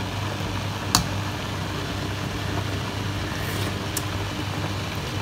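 Steady low mechanical hum with a fan-like rush, like a kitchen extractor or cooktop fan running, with one sharp click about a second in.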